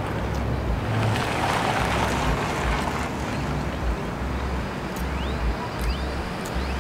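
Outdoor traffic ambience: road vehicles passing, one swelling past in the first few seconds, with wind rumbling on the microphone.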